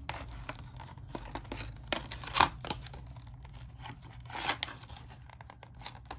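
A package of miniatures being worked open by hand: irregular rustling, scraping and clicks, with louder tearing about two and a half seconds in and again about four and a half seconds in.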